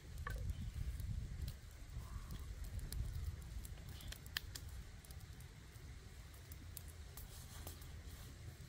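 Open wood fire crackling with scattered sharp snaps under a steaming wok, over a low steady rumble.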